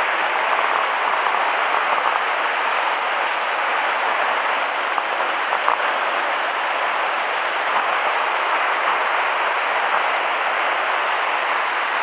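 Steady rush of a waterfall in a mountain stream swollen with typhoon rain, the water pouring close by.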